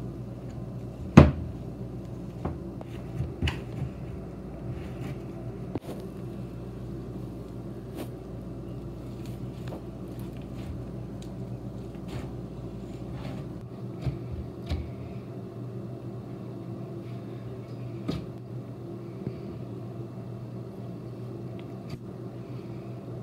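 Glue-and-clay slime being poked in a jar, then kneaded and stretched on a table: scattered soft clicks and squelches, with a sharp knock about a second in, over a steady low hum.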